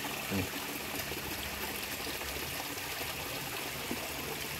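Water of a small stream trickling steadily, with a brief low thump about half a second in.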